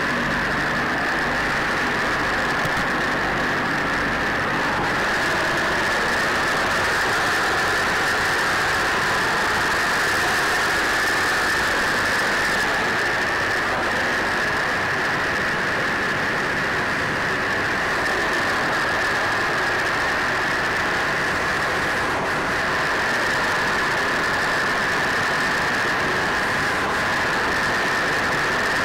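The B-25 Mitchell's two Wright R-2600 radial engines running steadily, heard from inside the fuselage as loud, unchanging engine noise with a strong steady high hum.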